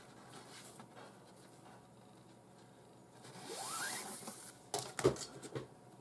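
Faint handling of nylon 550 paracord as a strand is drawn through a clove hitch: a swishing rub with a brief rising squeak about three seconds in, then a few quick rustling clicks as fingers work the cord.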